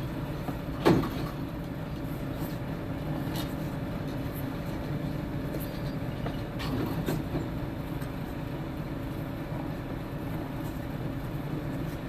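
Steady machine hum and rumble with a few sharp knocks, the clearest about a second in and around seven seconds.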